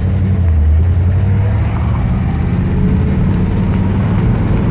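1956 Ford Thunderbird's 312 V8 running steadily as the car is driven, heard from inside the cabin, with a deep engine drone and a slight rise in pitch about halfway through.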